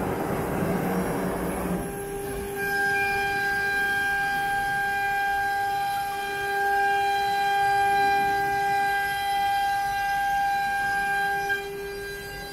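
CNC router's 9 kW air-cooled spindle running at speed with a steady high-pitched whine while the machine carves an MDF board. For the first couple of seconds a rough rushing noise lies over the whine, then it drops away and the whine carries on alone.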